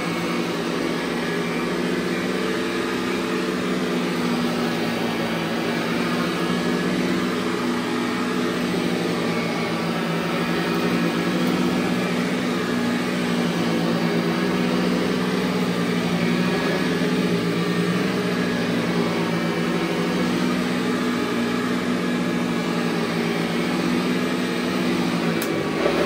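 Montgomery Ward SP8804 upright vacuum cleaner, a rebadged Eureka, running as it is pushed across carpet: a steady motor hum that holds one pitch throughout.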